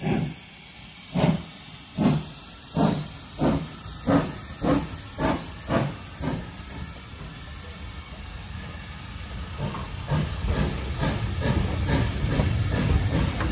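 Ex-GWR 57xx pannier tank engine's exhaust chuffing as it starts away, the beats quickening from about one a second to two a second over the first six seconds and then fading as the engine passes. From about ten seconds in, its coaches roll past with a rhythmic rumble that grows louder.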